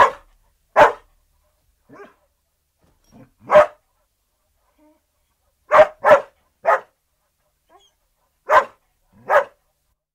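Collie-type dog barking, recorded in a studio: about eight short single barks, some in quick pairs, with silence between them.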